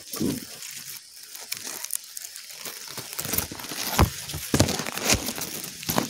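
Dry leaves and grass rustling and crackling as the cover around a bird's nest is pushed aside, with scattered clicks and a few sharp knocks from handling close to the microphone, the loudest about four seconds in.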